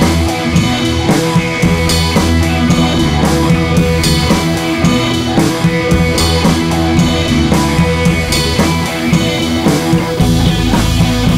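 Background music: a rock-style instrumental with guitar and drums keeping a steady beat.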